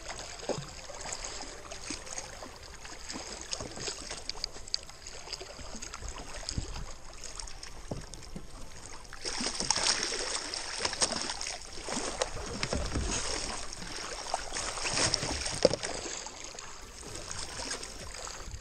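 Water splashing and sloshing against a fishing kayak's hull as a hooked sailfish thrashes alongside while being hand-lined in on its leader; the splashing grows louder from about nine seconds in, with scattered knocks on the hull.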